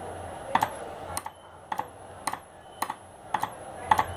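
Spark plug firing from a Chinese motorcycle's AC CDI ignition on the bench, a sharp snap about twice a second each time metal passes the pickup coil, and a faint high whine dipping after each snap. The regular sparking shows the CDI is working.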